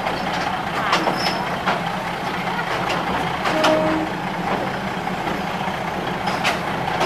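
State Railway of Thailand diesel train running over a riveted steel bridge, heard from an open carriage window: a steady rumble with occasional clicks and knocks from the wheels and rails. A brief tone sounds about halfway through.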